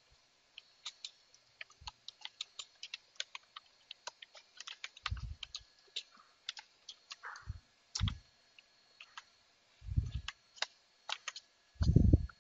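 Typing on a computer keyboard: a run of quick, uneven key clicks, with a few heavier, deeper key thumps among them, the loudest near the end as the command is entered.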